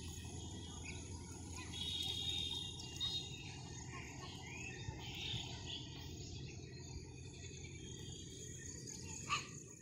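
Riverbank ambience: insects, crickets by their sound, keep up a steady high drone, with a few short bird chirps and a low steady rumble underneath.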